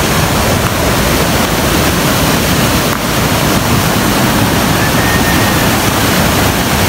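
Loud, steady rushing noise with no rhythm or let-up.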